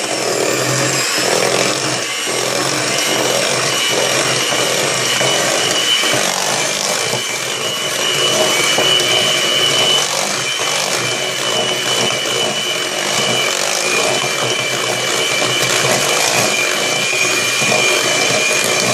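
Electric mixer running steadily with a high motor whine, its beaters churning a thick mix of peanut butter and softened margarine in a bowl.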